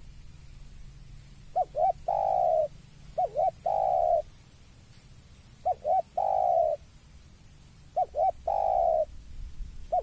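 Spotted dove cooing: four phrases, each two short quick notes followed by a longer, louder note that falls slightly in pitch.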